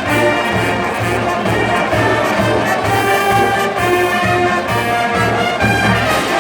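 Marching band playing: brass sustaining chords over a steady low beat.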